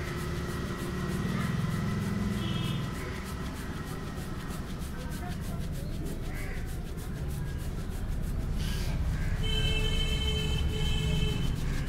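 Hands rubbing and kneading a man's scalp and hair during a barber's head massage, over a steady low rumble of street noise. Near the end a held tone sounds for about two seconds, louder than the rest.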